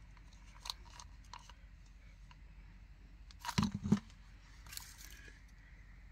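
Close-up eating sounds: a gummy candy stick being bitten and chewed, with scattered wet mouth clicks and a louder cluster of a few sharp bites or smacks a little past halfway.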